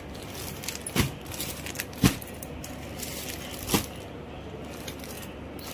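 Clear plastic packaging around folded cloth crinkling as a hand presses and handles it, with three sharp crackles, the loudest about two seconds in.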